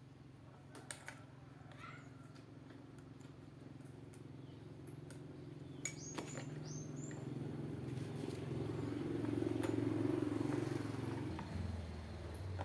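An engine running with a steady hum that slowly grows louder to a peak about ten seconds in, then drops in pitch near the end. A bird chirps briefly about six seconds in.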